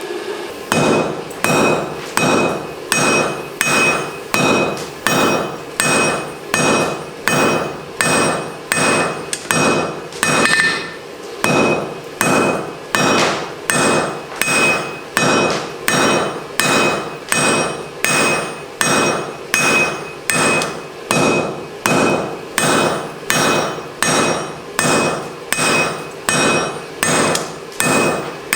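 Blacksmith's hand hammer striking mild steel flat stock on an anvil in a steady rhythm, a little under two blows a second, with a ringing note over the blows. This is the rein of a pair of tongs being drawn out.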